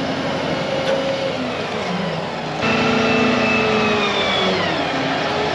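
The 110-tonne mobile crane's engine runs, dips, then revs up suddenly about two and a half seconds in. It holds there with a rising whine over it before winding back down near the end, as the crane works its hook cable.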